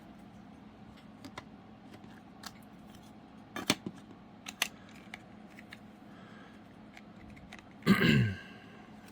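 Scattered light clicks and taps of trading cards and their plastic holders being handled, with a short vocal sound from the person, falling in pitch, about eight seconds in.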